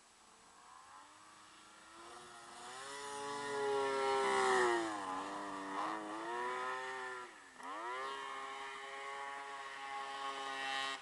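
1998 Yamaha SRX snowmobile's two-stroke triple engine working hard in deep snow, climbing in pitch and loudness as it comes closer. Its pitch dips about five seconds in and again, more sharply and briefly, a couple of seconds later, then holds high.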